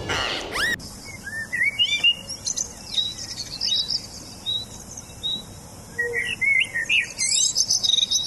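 Songbirds chirping and singing: many quick, high chirps and short trills, with thicker bursts of song about two seconds in and again near the end.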